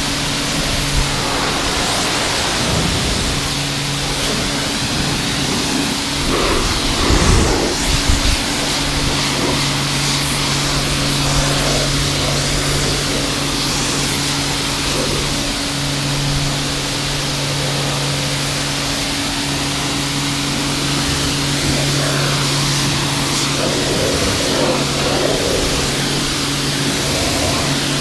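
Kärcher K4 electric pressure washer running steadily, its pump motor humming under the hiss of the lance's spray hitting the car's bodywork and glass. The hum breaks off briefly a few times, and there are a few low bumps about seven to eight seconds in.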